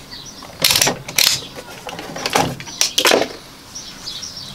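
Handling noise on a workbench: four short rustling, scraping bursts, the last two sweeping downward, as the soldering iron is settled in its holder and the hand is withdrawn.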